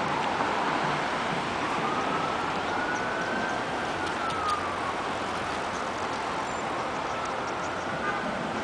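Steady city street traffic noise, with a distant siren wailing slowly up and down twice.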